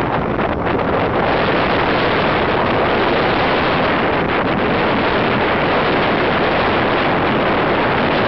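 Strong storm wind buffeting the microphone, loud and steady, over heavy surf breaking on the shore.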